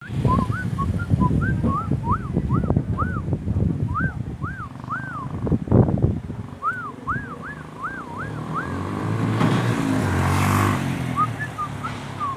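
Javan mynas (jalak kebo) calling in a long run of short, arched whistled notes, two or three a second, with gaps. A loud thump comes just before six seconds in, and a motor vehicle passes with a low engine rumble that rises and falls from about nine to eleven seconds in.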